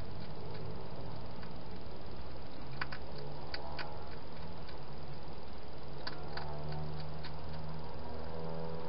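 Hedgehog eating at a bowl, its chewing heard as scattered sharp crunching clicks in small clusters, over a steady low hum.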